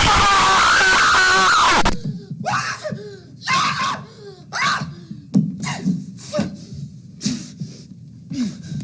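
Very loud, distorted screamer-effect scream with a wavering pitch, cutting off about two seconds in. It is followed by a string of short, quieter cries with sliding pitch, about one a second.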